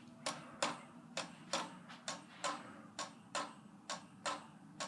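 Monte Carlo Designer Supreme II ceiling fan running on low speed with a steady hum and a loud, regular clicking, about three clicks a second. The noise is a sign of some fault in the fan that its owner can't pin down.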